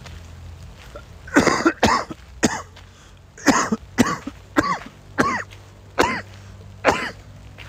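A man's coughing fit: about ten hard coughs in quick succession, roughly two a second, starting about a second and a half in and still going at the end.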